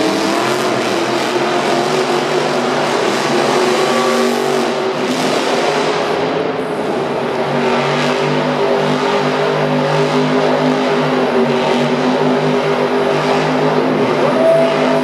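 Monster truck's supercharged V8 engine revving, its pitch rising and falling, then settling to a steadier, lower note about halfway through.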